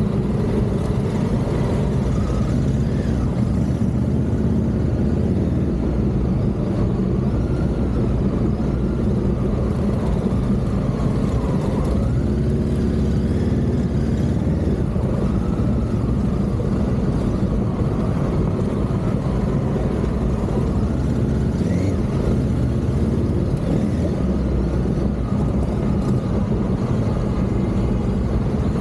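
Honda Africa Twin CRF1100's parallel-twin engine running under light throttle, its pitch wavering up and down a little as the rider works the throttle.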